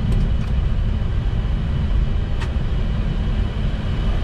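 Steady low rumble in the cockpit of a Boeing 737 MAX rolling on the ground after landing, with a faint click about halfway through.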